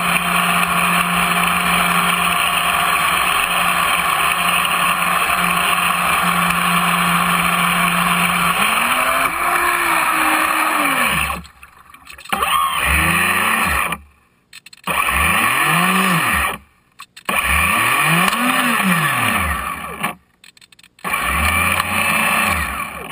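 RC model boat's 3D-printed jet drive running at a steady speed with water rushing past. About nine seconds in the steady tone breaks off, and the motor revs up and down in about five short blips separated by brief silences while the boat barely moves, the sign of a failed impeller.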